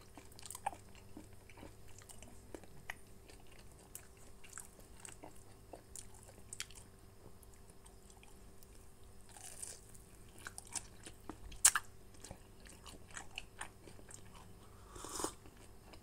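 Someone chewing and biting into a soft, chewy pempek ada'an: faint, scattered wet mouth clicks, with one sharper, louder click about two-thirds of the way in.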